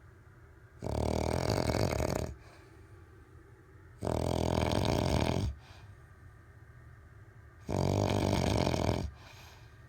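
A man snoring in his sleep: three loud snores about three and a half seconds apart, each lasting about a second and a half, with quiet gaps between.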